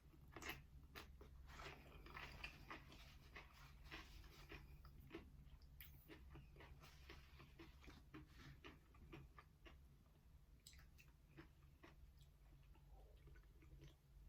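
Close-up chewing of a mouthful of aguachiles (lime-marinated raw shrimp with cucumber and onion on a chip), with frequent small, irregular crunches and wet mouth clicks.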